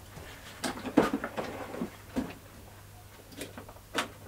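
Footsteps on a concrete floor and a series of sharp knocks and clicks as a plastic Flymo electric lawn mower is handled. The mower's motor does not run.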